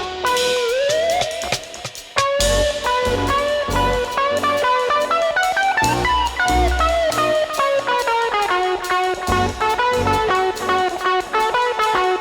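Live instrumental world-dub music: a plucked-string lead plays a fast melodic line with pitch slides over drum kit and deep bass.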